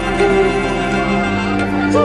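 Background music: a slow melody over long held low notes, the bass note shifting about halfway through.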